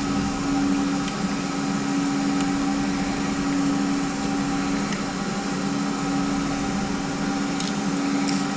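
Steady machine hum, like a fan or air conditioner running, with a few faint light clicks.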